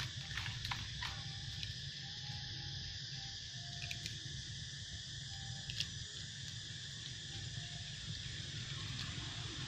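Forest ambience: a steady, high insect chorus over a low rumble, with a few short, faint tonal notes and occasional small clicks.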